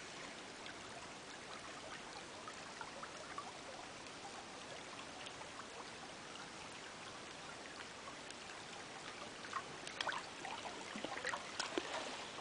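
Shallow creek water running and trickling steadily at a low level, with a few brief sharper ticks and splashes near the end.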